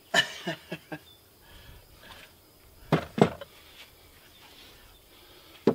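Short knocks and clatters of hand tools being handled on a wooden stair landing: a quick run of four near the start, two more about three seconds in, and another pair at the end.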